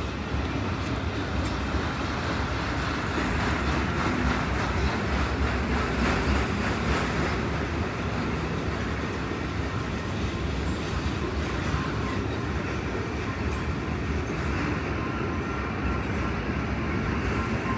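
Freight train of autorack cars rolling slowly past, a steady rumble of steel wheels on the rails.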